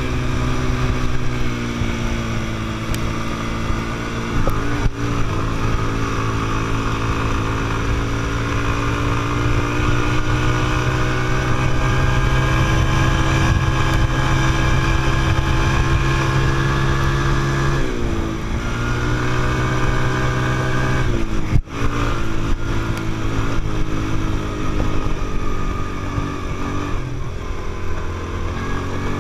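Quad bike engine running under steady throttle while riding over sand. Its pitch falls as the throttle is eased about two-thirds of the way through, then climbs again, with a short break in the sound soon after.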